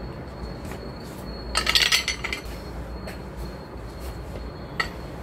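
Angle grinder's wheel guard being handled and fitted over the spindle collar: light clinks and rattles, with a short burst of clattering about two seconds in and a few single clicks after it.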